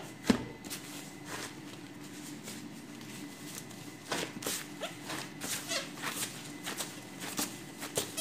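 Bread dough being kneaded by gloved hands on a floured counter: one sharp knock about a third of a second in, then from about four seconds on a run of quick, irregular slaps and rustles of plastic gloves against the dough. A steady low hum runs underneath.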